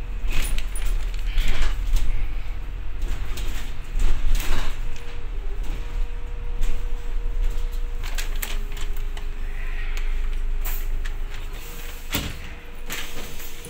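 Cabin noise inside a moving double-decker bus: a low engine rumble with frequent rattles and knocks from the bodywork and windows, and a thin steady whine that steps down in pitch a couple of times.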